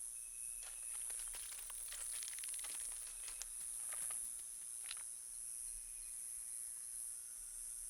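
Quiet outdoor night ambience: a steady high insect drone with scattered crackling and rustling, as of leaves and twigs, through the first five seconds or so.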